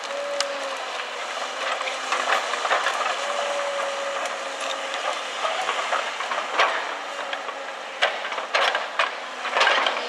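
Link-Belt 210 LX excavator running, its diesel engine and hydraulics making a steady noise with a whine that comes and goes. The log grapple knocks and cracks through logs and brush several times, most often near the end.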